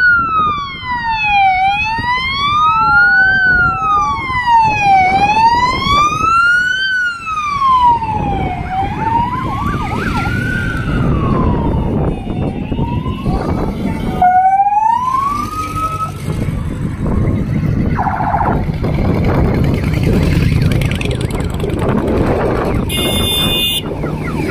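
A vehicle siren wailing slowly up and down, one rise and fall about every three and a half seconds. It stops after a short upward sweep about two-thirds of the way through. Under it, and then on its own, the engines of a long column of motorcycles rumble as they ride past.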